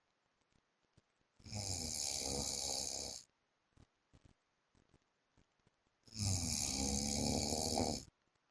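A sleeping man snoring: two snores of about two seconds each, nearly five seconds apart, the second slightly louder.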